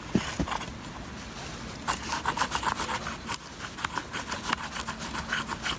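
Wood being cut by hand in quick rasping strokes, about three or four a second, starting about two seconds in after a few light knocks.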